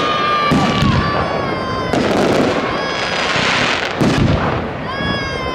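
Aerial fireworks shells bursting in a display: sharp bangs every second or two, with a crackling hiss from glittering shells in the middle. Long pitched tones run over the bangs.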